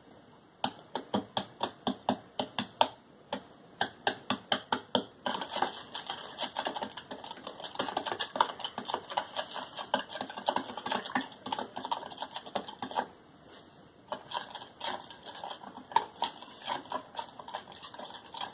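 A spoon stirring borax into water in a bowl, clicking against the bowl's sides in a quick run, about four clicks a second at first and then faster and denser, with a brief pause about three-quarters of the way through. The borax is being mixed until it dissolves with no chunks, to make the activator solution for slime.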